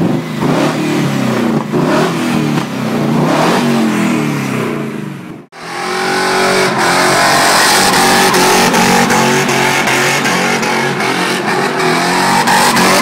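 Ford Sierra's swapped-in BMW S62 4.9-litre V8 revving up and down in repeated blips. After a sudden cut about five and a half seconds in, it is held at high revs while the rear tyres spin in a burnout.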